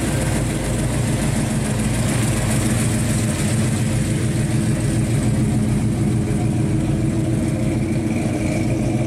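1970 Chevelle SS 454's big-block V8 running as the car rolls slowly past, a steady low exhaust note with no revving.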